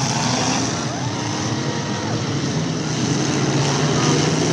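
Demolition derby cars' engines running and revving all at once on a dirt track, a dense, steady din.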